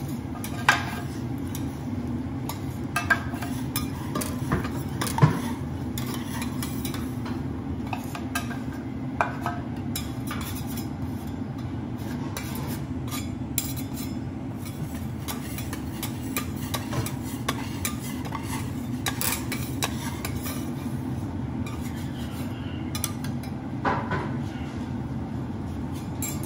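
Metal teppan spatulas scraping and clicking on a steel teppanyaki griddle as the rendered minced fat is scraped off the hot plate, with a few sharper clacks scattered through. A steady low hum runs underneath.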